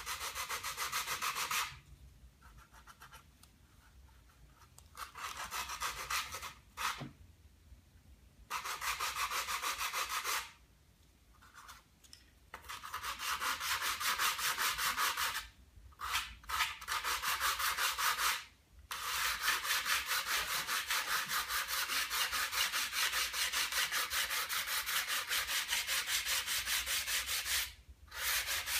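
Hand sanding: sandpaper rubbed in fast back-and-forth strokes over the wooden ribs of a glider wing. It comes in runs of strokes broken by several short pauses, with a long unbroken run through the second half.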